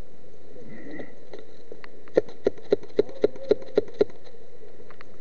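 Airsoft rifle firing eight single shots in quick, even succession, about four a second, starting about two seconds in.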